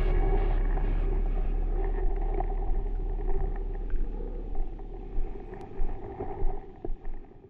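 Outdoor ambience dominated by a low wind rumble on the camera microphone, with a light hiss and a few faint ticks, gradually fading out and stopping at the end.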